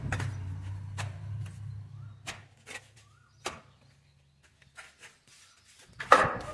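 Steel plastering trowel clinking and scraping against a metal mortar pan several times as cement mortar is scooped up, then a louder slap of mortar being pressed onto the wall near the end.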